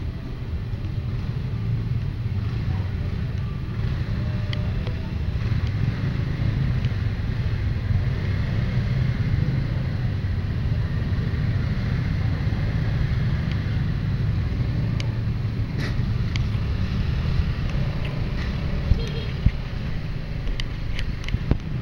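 Motorcycle engine running steadily at low speed, a continuous low drone, with other motor scooters around it. A few sharp clicks sound in the last few seconds.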